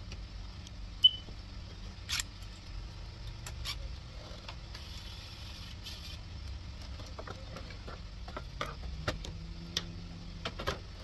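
Scattered clicks and knocks of hands and tools removing a part in a car's engine bay, over a steady low hum. The sharpest knock comes about a second in.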